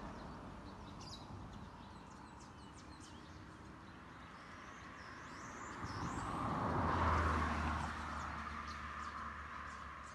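Birds chirping and calling over quiet outdoor ambience, with a vehicle passing that swells up and fades away about six to eight seconds in.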